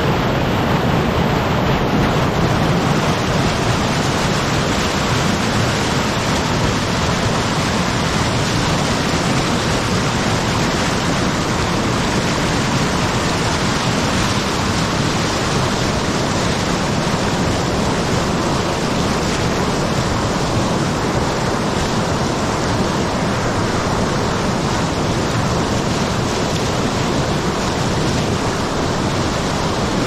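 Mountain stream rushing loudly and steadily over rocks and small waterfalls.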